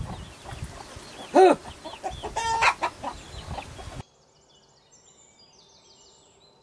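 Chickens clucking in short arched calls, with one loud cluck about a second and a half in and a quick run of clucks near three seconds. The sound cuts off suddenly about four seconds in, leaving near silence.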